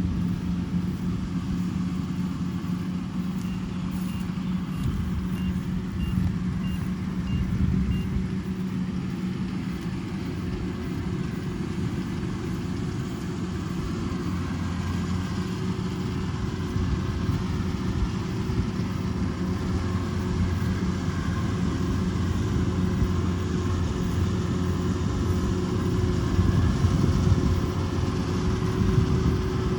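Kubota DC-105X rice combine harvester running steadily at work, with a string of about eight short high beeps between about three and eight seconds in.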